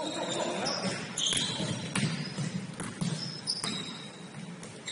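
Basketball being dribbled on a court: a steady run of about six bounces, a little under a second apart.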